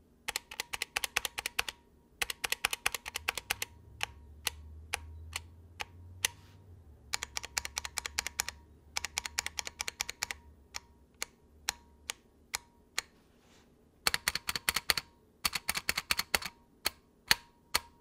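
Typing on a Drop Alt mechanical keyboard in stock form: quick runs of keystrokes broken by pauses and scattered single presses. Its stock plate-mount stabilizers rattle, with a ping on fast key releases, the sign that they need replacing.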